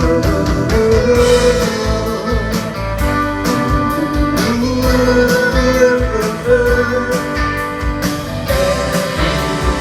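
Live pop-rock band playing: electric guitar over bass and a steady drum beat.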